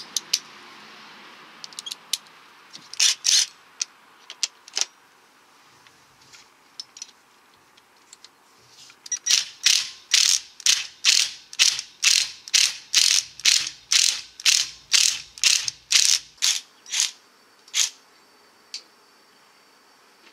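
Cordless impact wrench hammering in short trigger bursts, a few single ones and then a run of about two a second for several seconds. It is driving an easy-out to back the broken remnant of a spark plug out of the cylinder head.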